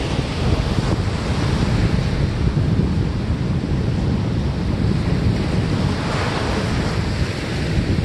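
Rough sea surf breaking over rocks and washing up a sandy beach, with wind rumbling on the phone's microphone. The wash swells to a louder hiss about six seconds in.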